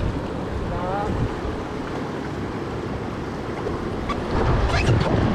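River water rushing and lapping around an inflatable raft, with wind on the microphone. The splashing grows louder near the end as a paddle strokes the water.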